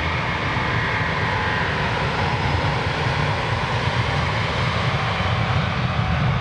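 Jet airliner engines at takeoff thrust during the takeoff roll: a steady, dense roar with faint whining tones that rise slowly.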